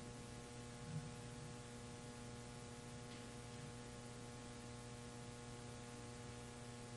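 Faint, steady electrical hum made of several constant tones, typical of mains hum from a loudspeaker system, heard in the pause between phrases of the call to prayer.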